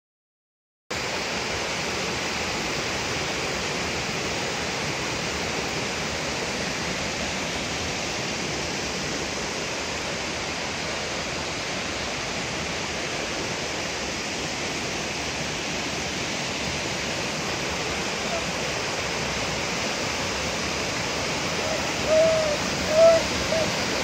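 Waterfall and a rocky mountain stream cascading over boulders, a steady rushing of water that starts about a second in. Near the end, a couple of short high calls stand out briefly over the water.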